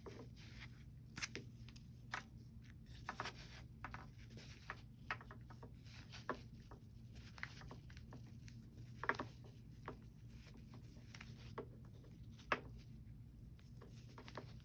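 Scattered light clicks, taps and scrapes of pistol parts and cleaning tools being handled during gun cleaning, over a steady low hum. One sharper tap comes near the end.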